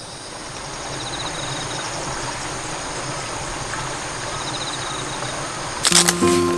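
Steady outdoor ambient hiss with two faint runs of rapid insect chirps. Near the end a sudden loud fabric rustle as the tarp's side wall is handled, and background music begins.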